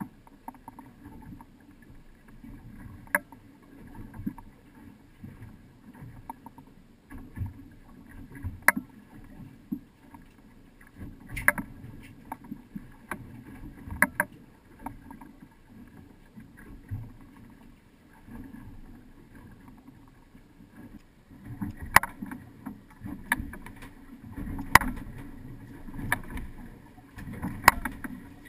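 Low, uneven rumble of a sportfishing boat on choppy water, with scattered sharp knocks and clicks, more of them in the second half.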